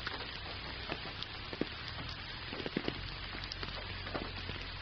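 Gentle rain falling steadily: an even hiss with many individual drops ticking close by at irregular moments.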